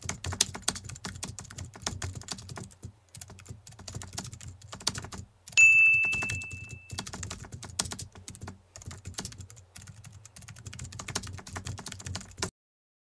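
Typing sound effect: rapid key clicks in quick runs with short pauses, and a single bell ding about five and a half seconds in that rings and fades. The typing cuts off suddenly near the end.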